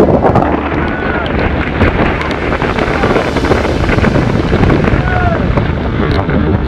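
Storm surf breaking and churning in whitewater at water level, with heavy wind buffeting the microphone.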